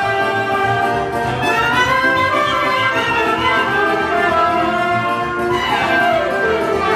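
Live wedding-band music for a line dance: a saxophone-led melody with pitch glides over a steady bass beat, typical of a Romanian folk dance tune.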